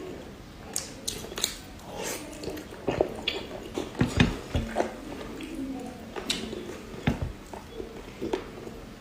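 Close-miked chewing, biting and lip-smacking of someone eating braised pork belly: a steady run of short wet clicks and smacks, with a few low thuds about four and seven seconds in.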